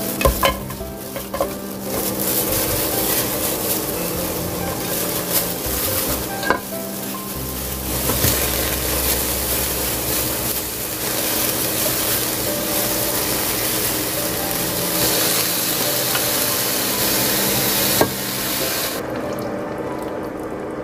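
Ingredients being layered into a pot by hands in plastic gloves: sliced onion, bean sprouts and pan-fried tofu go in, making a steady crackling, rustling noise with a few sharp clicks. The noise eases in its highest part about two seconds before the end.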